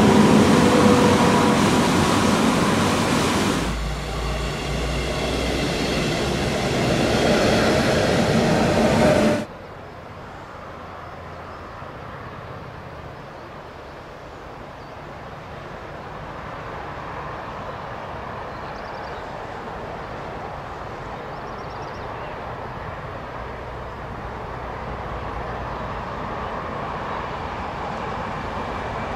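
Rushing river water under a bridge as an SBB RBDe 560 'Domino' electric multiple unit crosses it. A deeper rail rumble joins after about four seconds. The sound cuts off suddenly about nine seconds in to the quieter, steady running sound of the Domino train, which slowly grows louder.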